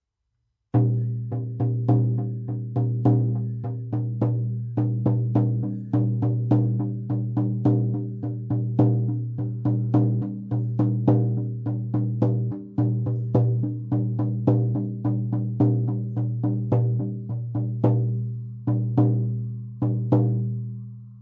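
Deerskin shamanic frame drum on an oak frame, struck with a firm beater in a steady beat of about two to three strokes a second, each stroke ringing with a deep booming tone. Near the end the beat slows to a few spaced strokes and the last one rings out and fades.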